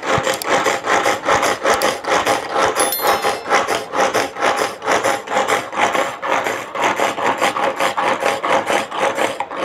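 Pull-cord manual onion chopper (spin cutter) worked by hand, its cord pulled again and again about twice a second, each pull spinning the three blades through chopped onion in the plastic bowl.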